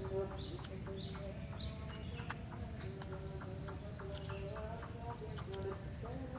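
Sooty-headed bulbuls (kutilang) calling: a quick run of short, high, downward-slurred chirps, then scattered chirps over a faint steady hum.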